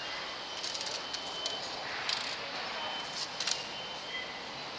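Busy city ambience picked up by a body-worn camera while walking: a steady background of traffic and indistinct voices, with a faint steady high tone and scattered clicks and rustles.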